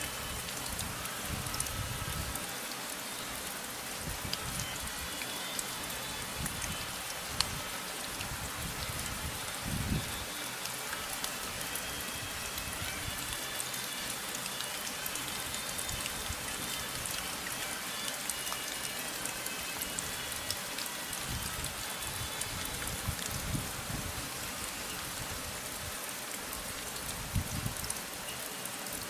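Steady rain falling: an even hiss full of many separate small drop ticks, with a few soft low thuds now and then.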